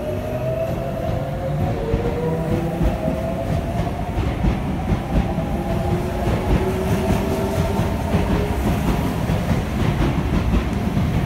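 Sotetsu 8000 series electric train accelerating away from a standstill, its Hitachi GTO-thyristor VVVF inverter sounding as several tones that slowly rise in pitch over a steady rumble. The wheels click over the rail joints, more and more often toward the end.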